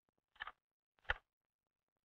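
Two single typewriter keystrokes, sharp clicks about two-thirds of a second apart, part of a slow, even series of key strikes.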